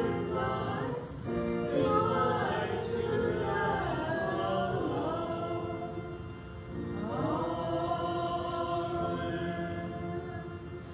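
Congregation singing a hymn or sung response with keyboard accompaniment, in held, sustained phrases with a short breath between phrases about six seconds in.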